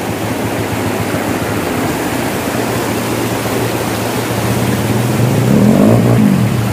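Shallow rocky river rushing steadily over stones, with a motorcycle engine running under it; about five seconds in the engine grows louder and its pitch rises and then falls as the bike is ridden through the river.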